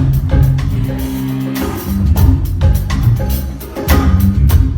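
Hindi film song playing loud, with heavy bass notes and repeated drum hits and no singing in this stretch.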